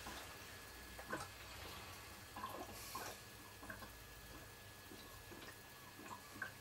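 Faint, irregular clicks and small plops of air bubbles working their way out of the tubing and hop chamber as beer is pumped round, over a faint steady hum.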